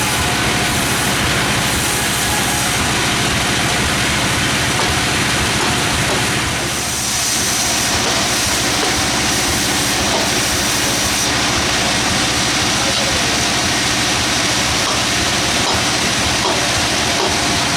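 Sawmill machinery running steadily: an engine drone with a dense high-pitched saw noise over it, dipping briefly about seven seconds in.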